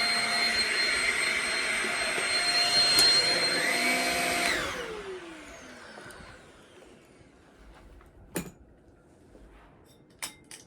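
Shark Rocket corded stick vacuum running with a steady high whine, then switched off about four and a half seconds in, its motor winding down with falling pitch. Two sharp clicks follow in the quiet near the end.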